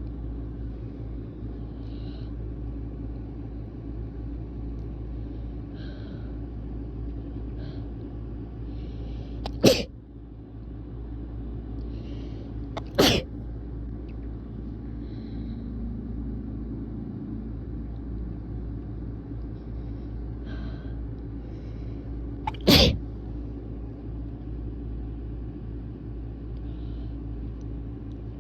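A person sneezing three times, about ten, thirteen and twenty-three seconds in. Each sneeze is sharp and loud and comes after quiet catching breaths, over a steady low hum.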